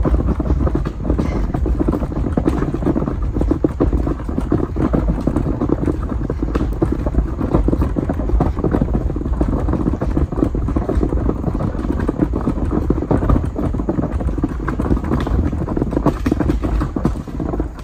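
Wheeled garbage can rolling over thick loose gravel, its wheels grinding and rattling over the stones in a loud, continuous clatter, with crunching footsteps on the gravel.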